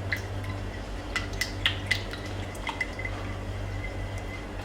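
Spoon stirring sugar and salt into vinegar and lemon juice to dissolve them, with light, irregular clinks of the spoon against the container and small liquid sounds.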